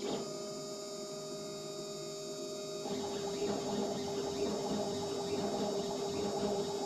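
CNC milling machine cutting, its spindle giving a steady whining hum as a small end mill engraves lettering into an aluminium plate. The cutting noise grows a little about three seconds in.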